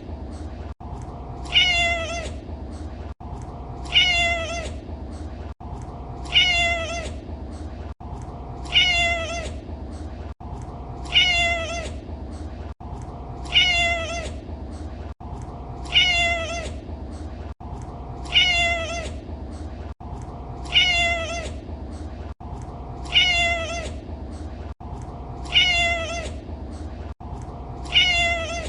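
Domestic cat meowing: the same short meow repeated at a steady pace, about once every two and a half seconds, over a steady low hum.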